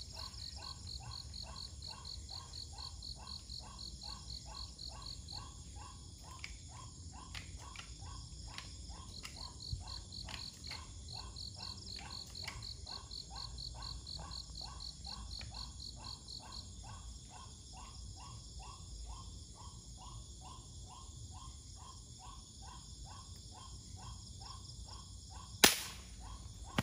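Night chorus of calling insects: a steady pulsing call about three or four times a second, with spells of fast high chirping. Near the end comes a single sharp crack: an air rifle shot that brings down the waterhen.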